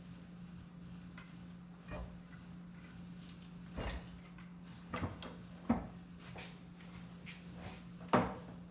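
A handful of separate knocks and clunks from tools and parts being handled during tractor transmission disassembly, the loudest near the end, over a steady low hum.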